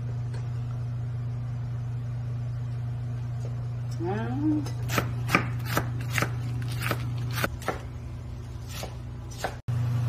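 Kitchen knife slicing a green onion on a wooden cutting board: about ten sharp strikes, roughly two a second, starting about halfway through, over a steady low hum.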